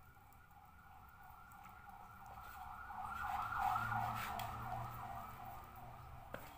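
Emergency vehicle siren passing by: a fast up-and-down yelp that swells to its loudest about halfway through and then fades away. A single sharp click near the end.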